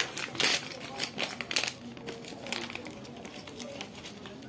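Small clear plastic bag of metal game pieces crinkling as it is handled and set down in a lined game-box tray, with light clinks of the pieces inside. The sharp rustles come in the first second and a half or so, then the handling goes quieter.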